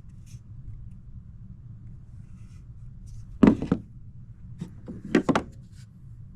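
Old hand tools being handled in a wooden carpenter's tool chest: a few sharp knocks and clatters, the loudest about three and a half seconds in and a short cluster around five seconds, over a faint low hum.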